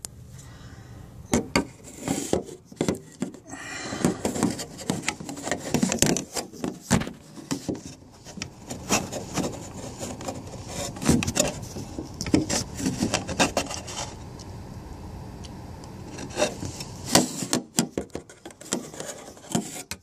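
Irregular rubbing, scraping and knocking close to the microphone, with a steady low rumble underneath: handling noise from the recording phone being moved against cloth or nearby surfaces.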